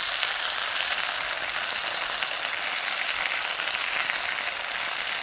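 Food frying in oil in a pan on a campfire: a steady sizzle with fine crackling.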